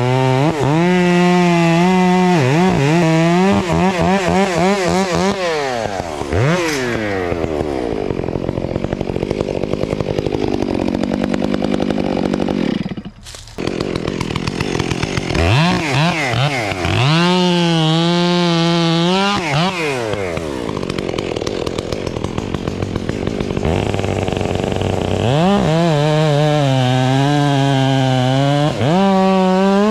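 Two-stroke chainsaw cutting the felling notch into a large ash trunk. The engine is held at high revs in the cut, and its pitch sags and climbs again as the bar bites and frees, with a brief break about 13 seconds in.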